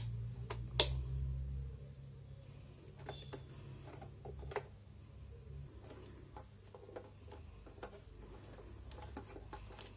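Two sharp clicks from a digital multimeter's rotary selector switch being turned, followed by scattered light taps and ticks of the test probes and leads being handled. A low hum fades out after about two seconds.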